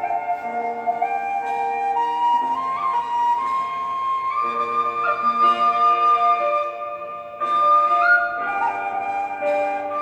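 Thai khlui flute music: a slow melody of long held notes over a sustained lower accompaniment.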